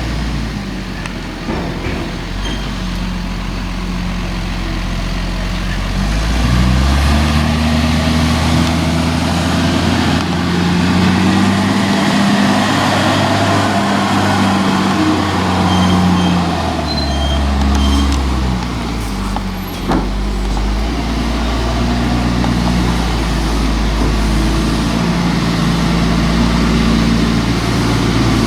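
A heavy vehicle's engine running, its pitch rising and falling several times as the revs and speed change, with one sharp knock about twenty seconds in.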